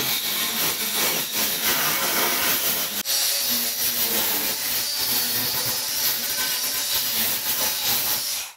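Angle grinder with a thin cut-off disc slicing through the sheet-steel flange of a Ford Escort Mk1 front wing: a steady, harsh cutting noise with a momentary break about three seconds in, cutting off abruptly near the end.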